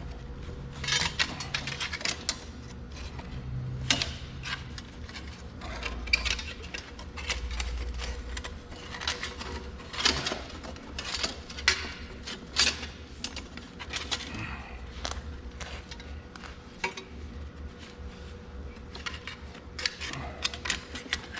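Irregular metallic clinks and taps as steel tractor axle parts (seal retainer rings and washers) and hand tools are handled and fitted, over a faint steady hum.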